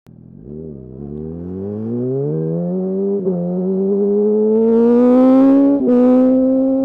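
2008 Yamaha R1's inline-four engine accelerating hard, its pitch climbing steadily with brief breaks at upshifts about three and six seconds in, loudest just before the second shift.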